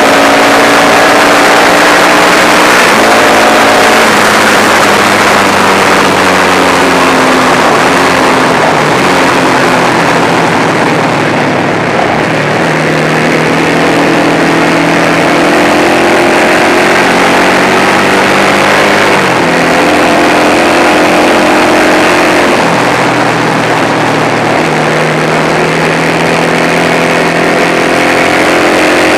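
Manx Norton single-cylinder four-stroke racing engine pulling hard under race load, its pitch climbing and dropping back several times as the rider works through the gears. Heavy wind rush on the bike-mounted microphone runs under it.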